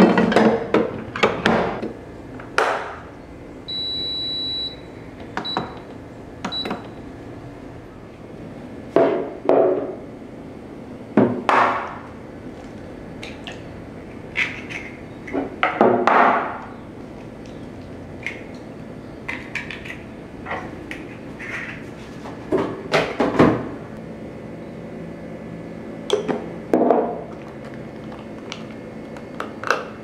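Electric rice cooker being loaded and set, with clunks and knocks from the inner pot and lid. A few seconds in, the cooker gives one steady high beep of under a second, then two short beeps. After that come scattered taps and clicks of kitchen work, including eggs being cracked against a glass measuring jug.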